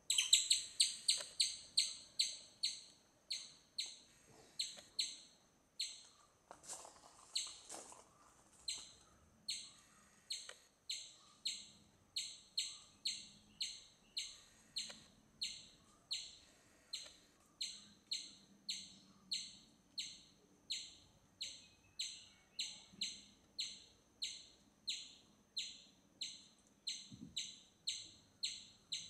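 A bird repeating a short, high chirp over and over at a steady pace, about three chirps every two seconds.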